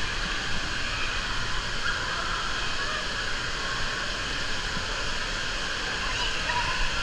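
Steady rush of moving pool water around a camera held at the water's surface in an indoor water park, with faint voices in the background.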